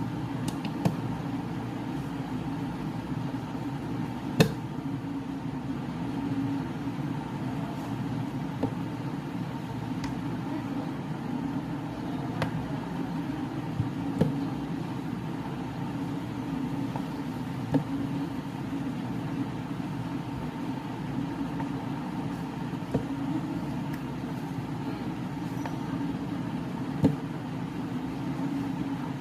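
A steady low hum, with a sharp click every few seconds as chess moves are played.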